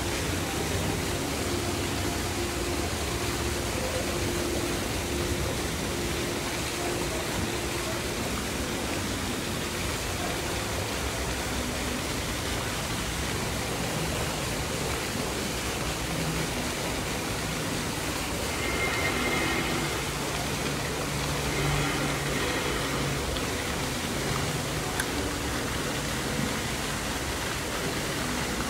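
Steady, even hiss of background noise, with faint hums coming and going.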